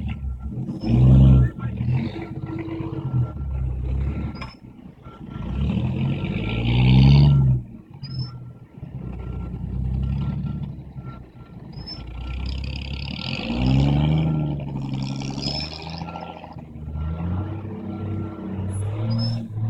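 Traffic idling and moving in snow, with a vehicle's reverse alarm beeping steadily at one pitch and engines swelling louder several times.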